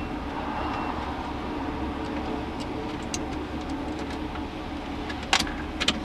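Steady low mechanical rumble of industrial background noise, with a few sharp clicks near the end.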